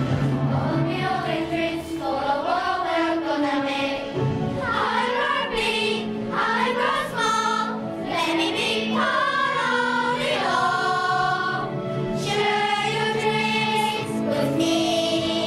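A children's choir singing together, the voices holding long notes and moving between pitches.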